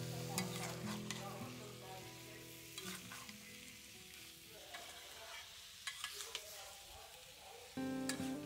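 Sliced potatoes and gourd frying with spices in an aluminium karahi, sizzling while a metal spatula stirs them, with scattered scrapes and clicks of the spatula against the pan. Soft background music plays under it.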